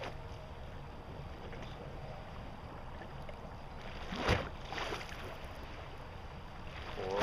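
Steady low rumble of wind and river water, broken by a sharp thump a little over four seconds in and a softer one about half a second later.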